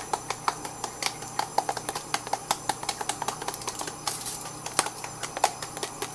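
Seasoning shaker being shaken over a pork loin, with quick irregular clicking and rattling, several clicks a second, and a brief hiss about four seconds in.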